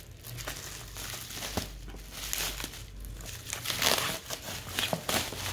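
Plastic shrink-wrap and bubble wrap crinkling and crackling irregularly as scissors cut it away from a cardboard box.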